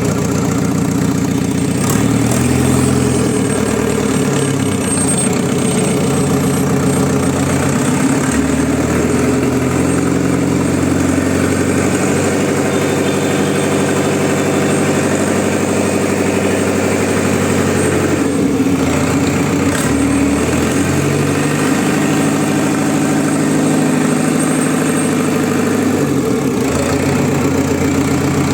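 Freshly overhauled JCB 444 four-cylinder diesel engine running steadily at idle, its pitch shifting slightly a few times.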